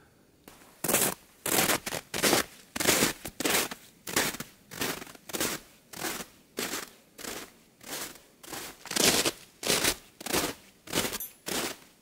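Footsteps crunching on a frozen snow crust that bears a walker's weight, a steady walking pace of about two steps a second, starting about a second in.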